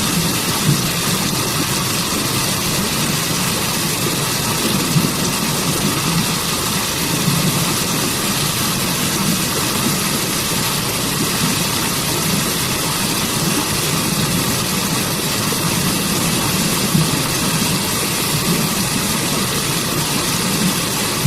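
Rushing water of a forest waterfall and stream, a loud, steady, unbroken rush.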